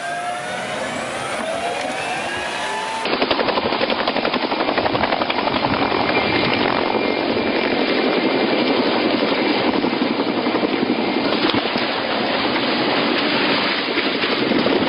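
For about the first three seconds, a tank's engine whines, its pitch gliding down and up. Then, after a sudden cut, a low-flying helicopter's rotor chops rapidly and loudly.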